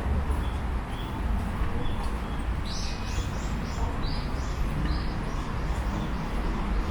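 Heavy rain falling on an umbrella as a steady hiss, with a bird giving a quick run of about seven short, high chirps starting about three seconds in.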